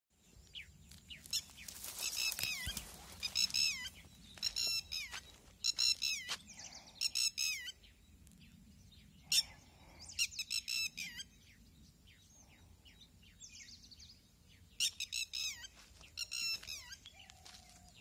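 Plover calls: bursts of quick, high chirps that fall in pitch, repeated every second or so, with two quiet spells partway through.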